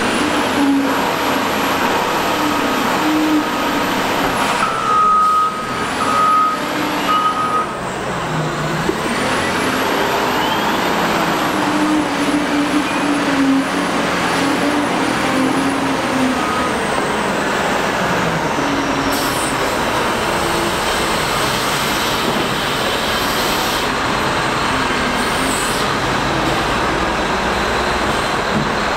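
Caterpillar 972M wheel loader's diesel engine running steadily as the machine works, with a reversing alarm beeping a few times about five to seven seconds in.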